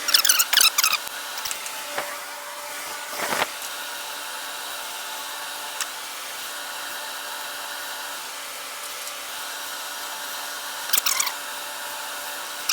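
Metal tools or parts clinking and rattling in short bursts, about a second long, at the start and twice near the end, over a steady machine hum like a shop fan or heater.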